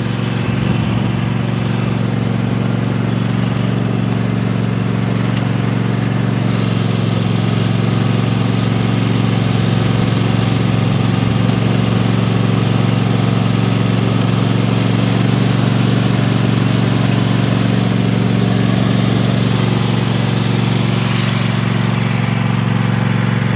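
Cub Cadet XT1 LT46 riding lawn mower's engine running at a steady, unchanging speed.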